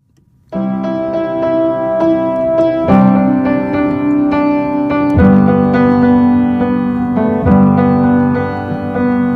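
Music: a keyboard, tagged as electric piano, playing held chords as a song's instrumental intro. It starts about half a second in, and the chord changes about every two seconds.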